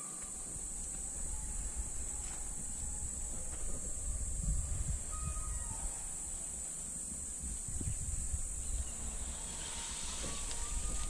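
Steady high-pitched insect buzz with a low rumble underneath, and some rustling and light clicks near the end as the tongs work at the plastic bucket.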